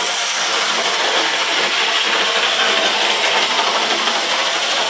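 Small OO gauge model locomotive running around the layout at full speed, its electric motor and wheels on the track making a steady, noisy whirr.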